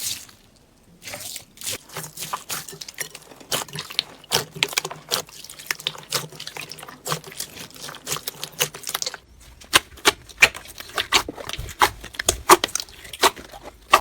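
Slime being squeezed and kneaded by hand, making a quick run of wet clicks and pops that become sharper and louder from about nine seconds in.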